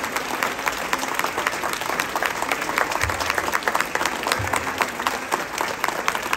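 Audience applauding: many people clapping steadily for award winners who are standing.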